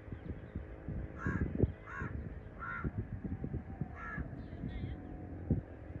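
Short, harsh bird calls: three in a row about three-quarters of a second apart, then another about four seconds in, over an irregular low thumping rumble that is the loudest sound, its strongest thump about a second and a half in.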